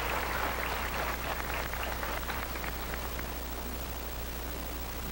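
Audience applause dying away: scattered hand claps thin out over the first three seconds, leaving a steady low hum.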